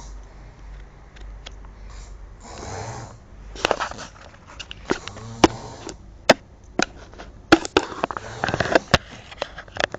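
A man snoring in bed: several rasping snores at irregular spacing, with sharp clicks and taps in between.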